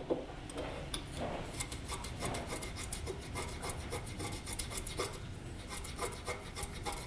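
Wooden pencil being sharpened by shaving its point across the blade of a steel block plane: a quick series of short scraping strokes.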